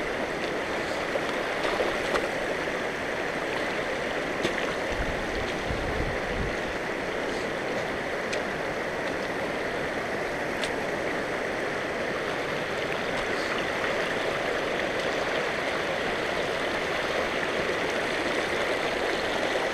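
Shallow mountain creek running over a rocky cobble bed: a steady rush of water.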